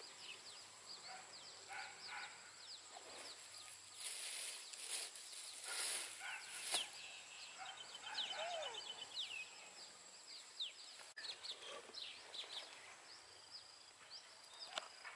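Birds chirping and calling: many short high chirps, with a rapid trill a little past halfway. A few seconds of rustling sit under the calls near the middle, and a steady high whine runs behind them.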